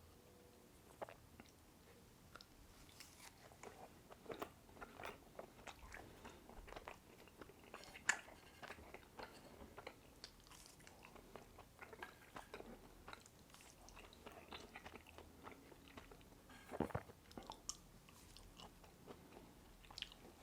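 Close-miked chewing and mouth sounds of someone eating thick hand-pulled noodles with lamb: soft, scattered wet clicks and smacks, with a louder one about eight seconds in and a cluster near seventeen seconds.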